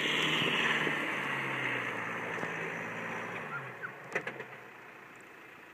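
Volkswagen Amarok ute's engine running low as it crawls on a steep dirt slope, with a steady hiss above it, the whole fading away and the engine dropping out after a little over three and a half seconds. A few faint clicks follow about four seconds in.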